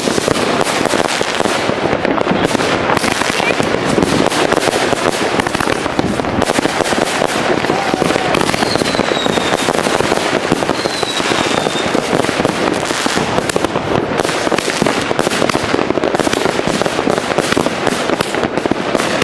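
Several consumer firework batteries (cakes) firing together in a dense, continuous barrage of bangs and crackling. Two short, slightly falling whistles cut through about halfway through.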